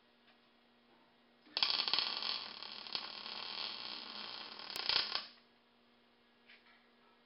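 Electric arc welding on steel: one bead of about three and a half seconds, a steady crackling hiss that starts and stops abruptly. A faint electrical hum runs under it before and after.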